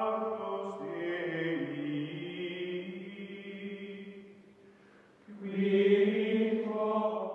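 Outro music of long held, voice-like chords. The chord shifts pitch about a second in and fades away around four to five seconds in, then a new held chord swells in near the end.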